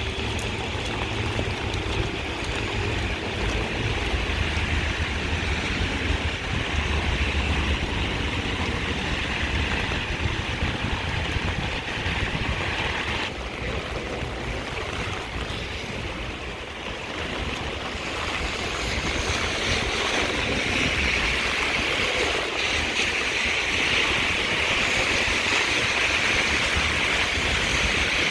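Heavy rain falling steadily, a dense hiss, with a low rumble underneath. The hiss thins for a few seconds about halfway through, then comes back stronger.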